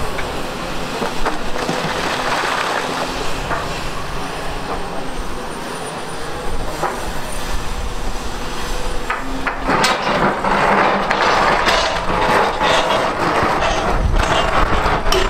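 LiuGong 942F hydraulic excavator running as it digs, its bucket scraping and knocking through broken rock. The clatter of rock grows denser and louder from about ten seconds in, with many sharp knocks.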